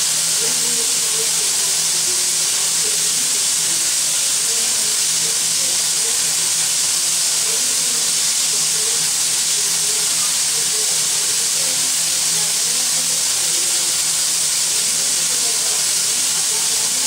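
Steam locomotive L-4600 letting off steam: a steady, even hiss that does not change, with no whistle sounding.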